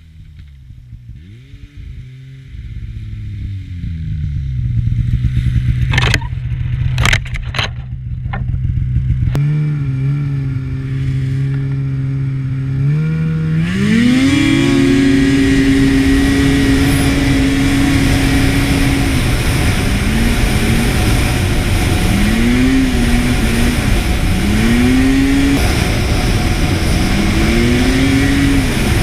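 Snowmobile engine running, climbing in pitch about halfway through as it speeds up, then rising and falling again and again as the throttle is worked. A few sharp clicks come about six to eight seconds in.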